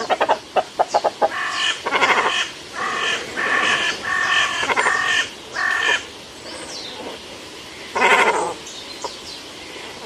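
Cormorants calling: a quick rattle of clicks, then a string of short calls in bouts until about six seconds in, and one more call about eight seconds in.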